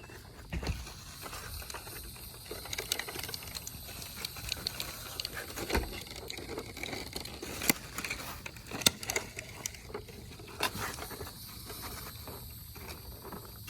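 Irregular light clicks, taps and rustling, with a couple of sharper knocks about eight and nine seconds in.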